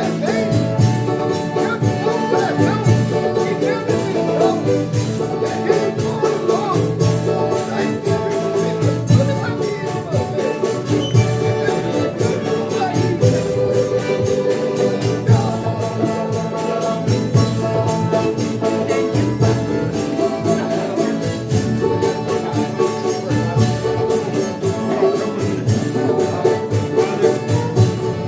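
Folia de Reis company singing a thanksgiving chant: several voices singing together over tambourine and strummed strings, in a steady rhythm.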